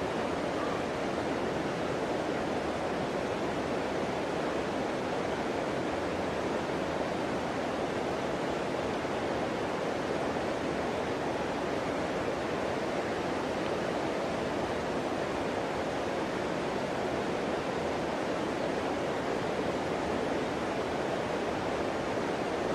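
Steady rush of flowing river water: an even, unbroken noise.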